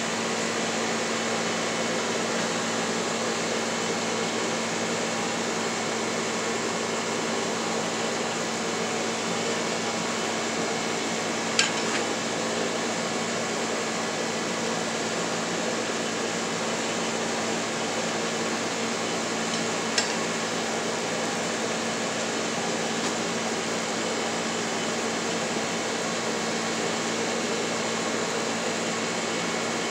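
Steady rushing hum of a fan or air blower in the blacksmith's shop. Two sharp metal clinks stand out, one about twelve seconds in and one about twenty seconds in, as steel tools touch the anvil.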